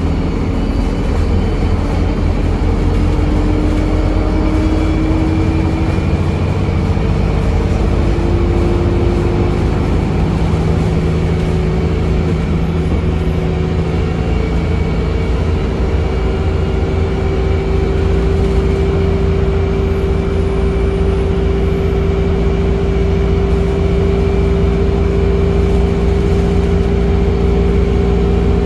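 Inside an ADL Enviro 200 MMC bus on the move: its Cummins ISBe 4.5-litre diesel and Voith DIWA automatic gearbox running steadily under load, with a heavy low rumble and a whine that rises slowly for the first half and then holds level.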